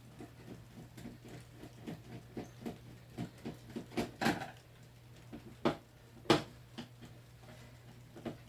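Irregular small clicks and knocks of hands and a tool working on the plastic case of an electronic keyboard being taken apart, with a few sharper knocks around the middle, over a steady low hum.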